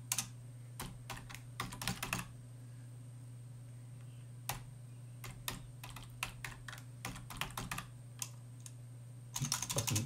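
Typing on a computer keyboard: quick runs of key clicks in the first two seconds and again from about nine seconds in, with a few single keystrokes between, over a steady low hum.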